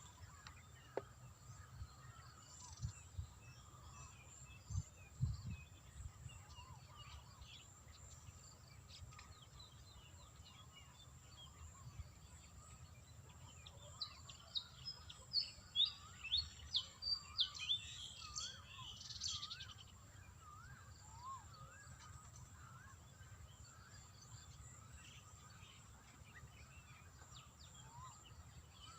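Birds chirping and calling, with a run of loud, quick chirps about halfway through, over a faint outdoor background. A few low thumps come early on.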